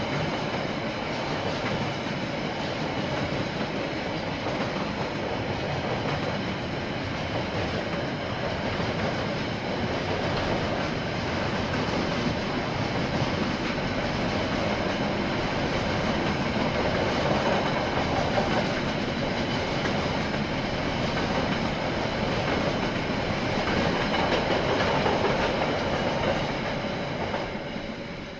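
KiwiRail freight train of container wagons rolling past on the line, a steady rumble of wheels and wagons that grows a little louder past the middle and begins to ease off near the end.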